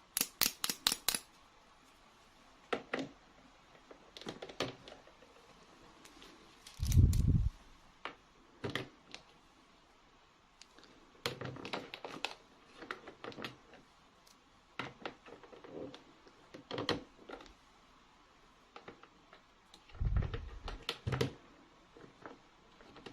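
Small plastic toy pieces and packaging being handled: scattered clicks and taps, with a quick run of clicks at the start. There is a heavier thump about seven seconds in and another about twenty seconds in.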